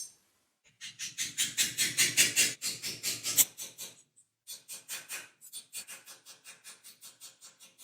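Rapid back-and-forth scraping or rubbing strokes by hand on a surface, about five strokes a second, in two runs with a short pause between them; the second run is fainter and fades out.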